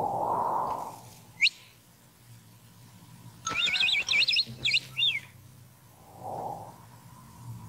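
Cartoon bird calls: a single sharp rising chirp, then a quick run of high chirps about three and a half seconds in. A soft whoosh comes at the start and another about six seconds in.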